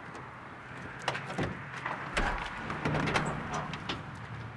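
Light clicks and knocks with dull thumps about a second and a half and two seconds in, over a steady low hum: a car's hood being unlatched and lifted.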